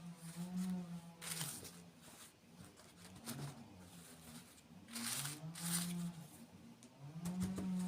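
Two short bursts of crisp crunching, typical of biting into crunchy sweets at close range, about a second in and again about five seconds in, over a low humming tone that comes and goes.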